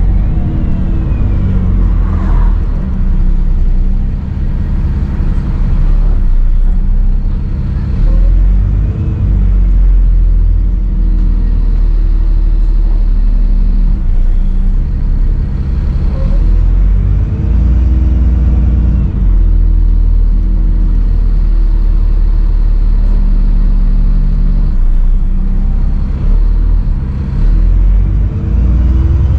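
Dennis Trident 2 / Enviro 400 double-decker bus engine running steadily under way, with a slight turbo whistle: a faint thin high tone above the engine.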